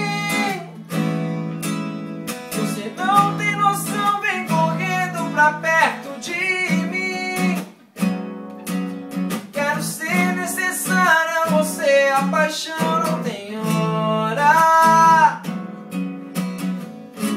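Two acoustic guitars strummed together in a steady rhythm, with a man's voice singing over them in stretches.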